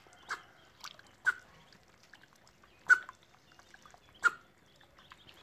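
Muscovy duck and ducklings dabbling and splashing in a shallow puddle: a handful of short, sharp wet sounds, the loudest about three and four seconds in.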